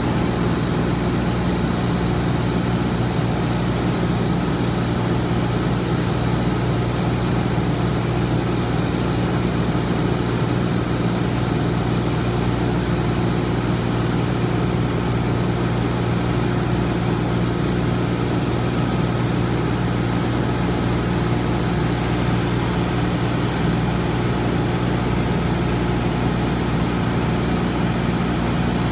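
Cessna 182's piston engine and propeller droning steadily in flight, heard from inside the cabin.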